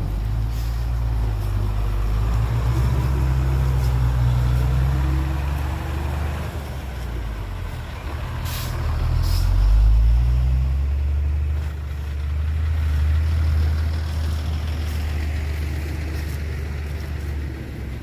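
Heavy diesel engine of a working truck or excavator, a low drone that rises and falls in pitch and is loudest about ten seconds in, with two sharp clicks near the middle.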